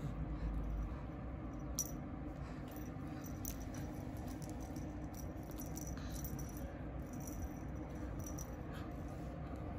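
Light, irregular rattling and clicking from a cat wand toy and its ribbons as a baby's hands tug at them and a kitten bats at the toy.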